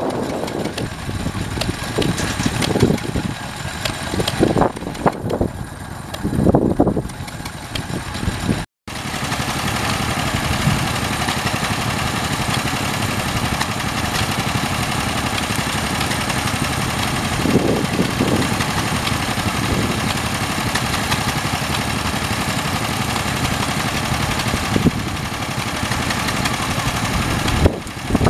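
Vintage stationary engine running. Its sound is uneven for the first nine seconds, then breaks off briefly and gives way to a steadier, even running that holds to the end.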